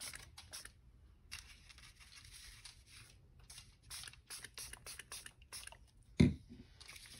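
Hand-pumped spray bottle misting rubbing alcohol onto paper in a rapid series of short hisses, mixed with paper being shifted about. A single sharp thump about six seconds in.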